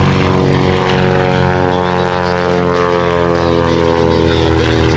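Great Lakes 2T1A biplane's inverted Ranger engine and propeller running at power in a low, close fly-by. The pitch drops as the plane passes, about halfway through.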